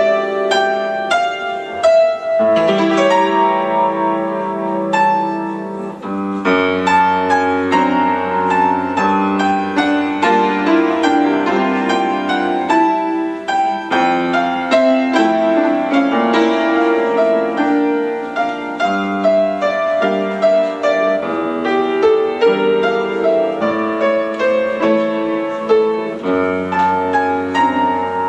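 Background piano music, a steady flow of notes over sustained low tones.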